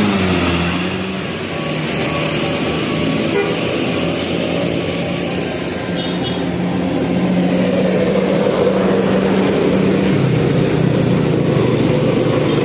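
Bus engine running close by with continuous road noise. Its steady low pitch drops about ten seconds in.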